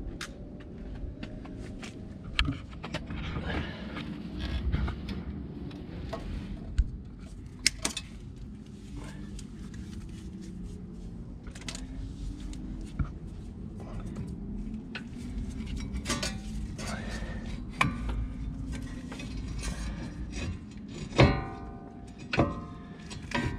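Metallic clicks and clinks of a front brake caliper, its pads inside, being handled and worked back over the disc rotor, with a few louder knocks near the end.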